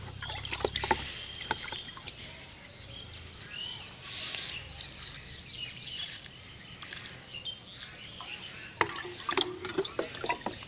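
Water trickling and splashing onto garden soil, with scattered sharp clicks and knocks and a few short bird chirps.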